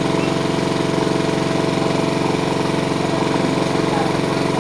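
Small engine running steadily at a constant speed, with a fast, even firing pulse and no change in pitch.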